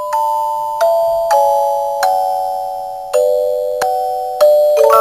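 Background music: a slow melody of bell-like struck notes, often two at once, each ringing out and fading before the next.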